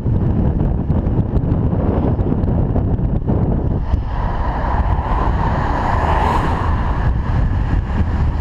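Wind rushing over a helmet-mounted action camera's microphone on a moving bicycle, with passing road traffic; from about four seconds in a louder rushing builds as vehicles pass close by.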